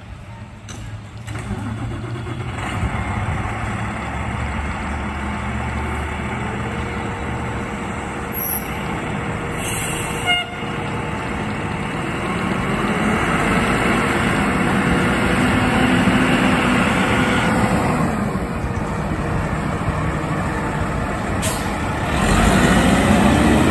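Aerial ladder fire truck's diesel engine running and pulling away, with a short sharp burst of air from the air brakes about ten seconds in. The engine note rises as the truck accelerates, and it is loudest near the end as the truck passes close by.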